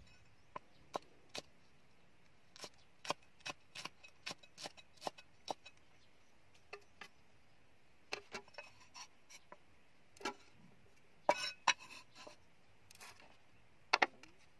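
Cleaver chopping red chilies on a round wooden chopping block: irregular sharp knocks in quick runs. Near the end, two sharper knocks as the blade pushes the chopped chilies across a ceramic plate.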